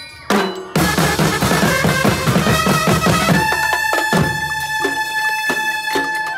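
Live street percussion band playing a fast beat on a drum kit and hand drums. The drums come in with a loud hit about a third of a second in, and a flute holds a high note over them from a little past halfway.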